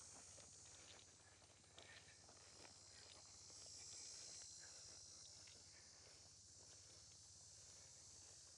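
Faint, steady high-pitched insect chorus, swelling about four seconds in, with faint scattered footsteps through field grass.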